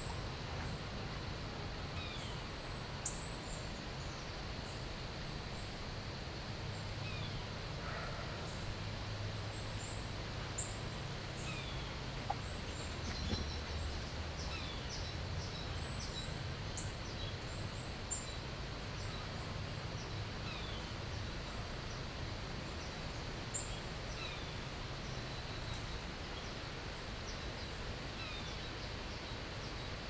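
Backyard songbirds calling, Northern Cardinal and American Goldfinches among them: scattered short high chirps and a single short falling 'pewing' note repeated every two to three seconds, over a steady low background rumble. The repeating 'pew' is a call the recordist has never identified and suspects may be a Gray Catbird.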